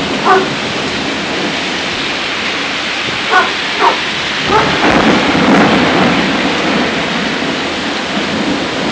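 Heavy rain pouring down steadily, with a low rumble of thunder swelling around the middle. A dog gives four short barks in the first half.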